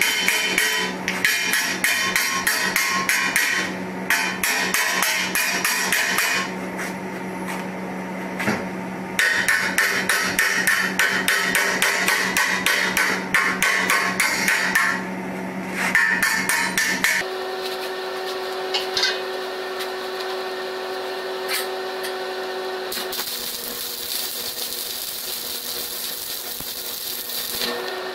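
Chipping hammer rapidly knocking slag off fresh welds on a steel rack frame, a fast run of metallic taps for the first half or more. From about two-thirds of the way in, a steady crackling hiss of a welding arc.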